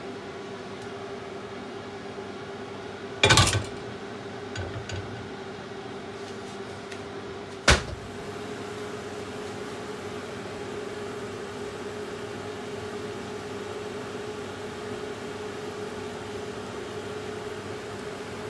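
Steady kitchen hum with a constant low tone, broken by two loud knocks about three and eight seconds in: a frying pan set back down on the gas hob's metal grate.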